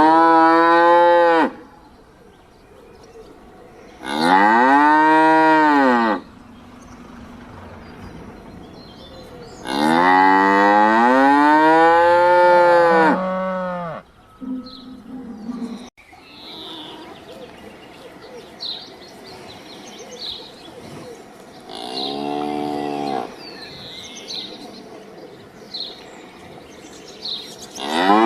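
Cow mooing: long, loud moos a few seconds apart, each rising and then falling in pitch, the longest about ten seconds in. A shorter, quieter moo comes about 22 seconds in, and another starts right at the end.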